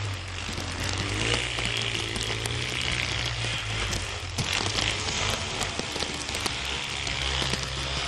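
Yamaha Raptor ATV engine running at a distance as it rides through deep snow, under a steady hiss with scattered crackling clicks.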